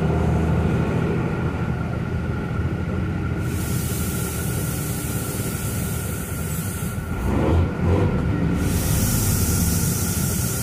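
Truck's diesel engine running with road noise, heard from inside the cab while driving. A steady hiss comes in and out, and there is a brief louder sound about seven and a half seconds in.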